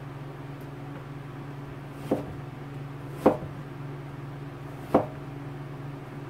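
Kitchen knife slicing through a peeled bottle gourd and knocking down onto a plastic cutting board three times: about two seconds in, a second later, and near the five-second mark. A steady low hum runs underneath.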